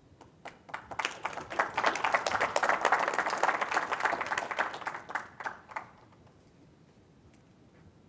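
Small audience applauding at the end of a talk, the clapping swelling in about half a second in and fading out about six seconds in.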